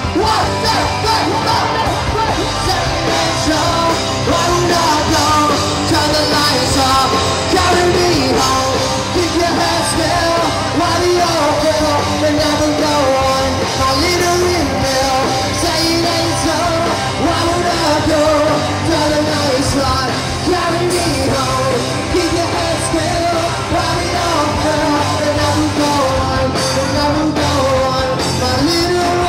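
A live rock band playing a song with a singer, loud and steady, heard from within the crowd at an outdoor stage.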